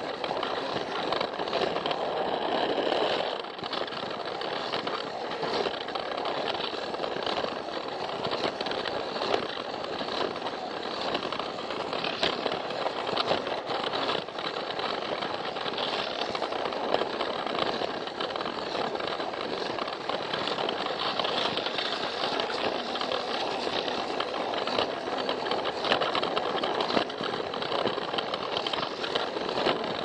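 Plarail toy train's small battery motor and gearing running steadily, with its wheels clicking and rattling along plastic track. It is heard from a camera riding on the train.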